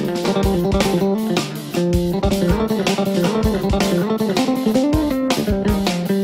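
Background music: guitar and bass guitar over a steady beat.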